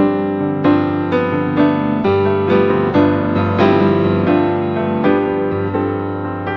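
Classical-style piano background music: a steady run of notes over sustained bass notes.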